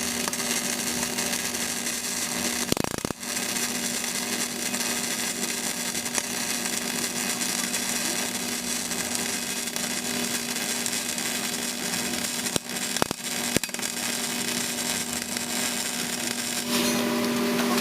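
CO2 semi-automatic (MIG) welding arc: a steady dense crackle and hiss over a steady low hum, broken off briefly about three seconds in and twice around the middle, getting louder near the end.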